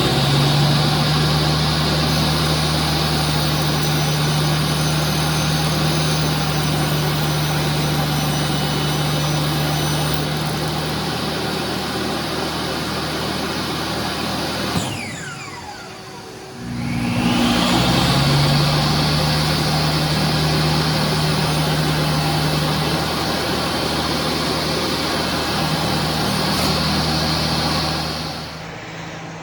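Electric woodworking power tool motor running at speed with a steady high whine. About halfway through it is switched off and winds down, then it is started again and spins up within about a second, running until it stops shortly before the end.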